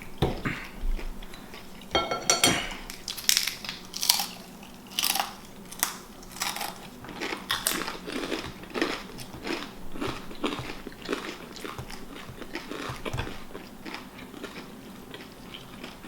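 Close-miked eating: a person chewing with crisp, crunchy bites and wet mouth clicks, irregular and continuous.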